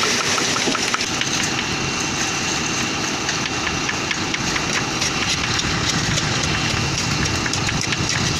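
Concrete mixer truck's diesel engine running steadily, with a dense gritty crackling over it throughout.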